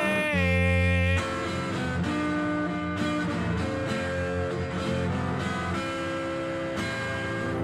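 Guitar-led song: held plucked guitar notes over a low bass line, a little louder for about the first second.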